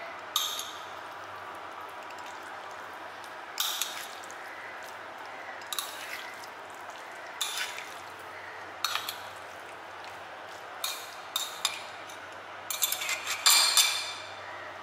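A metal utensil mixing sauce-coated spaghetti on a ceramic plate: a dozen or so short clinks and scrapes against the plate amid wet noodle sounds, coming closer together near the end.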